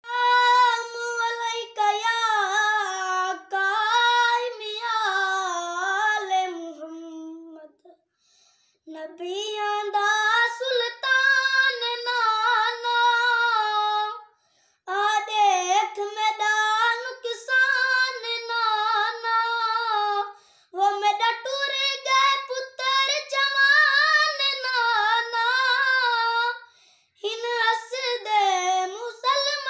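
A young boy singing unaccompanied in a high voice, in long wavering phrases of several seconds with brief breaks for breath between them.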